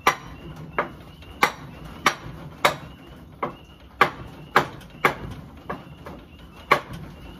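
Hammer blows on a wooden block, driving the spindle out of a Logan 200 lathe headstock: about a dozen sharp knocks, roughly one every half second.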